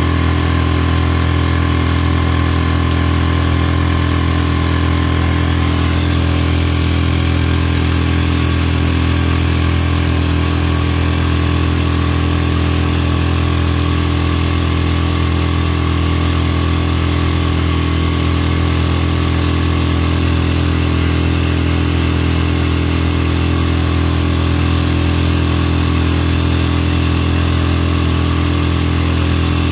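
Mercury 3.5 hp four-stroke outboard running steadily under way, its pitch holding level throughout. A hiss joins it about six seconds in.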